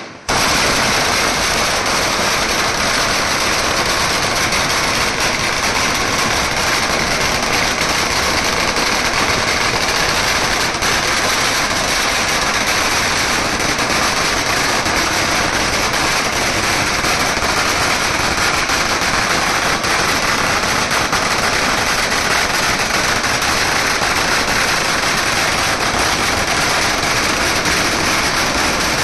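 A long string of Chinese firecrackers going off in a dense, continuous crackle, starting suddenly and keeping an even loudness without a break.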